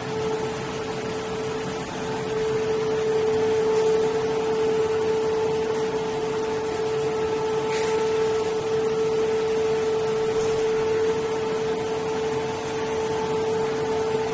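Label printing press with servo motion control running steadily: a constant hum with a steady mid-pitched whine over an even rushing noise.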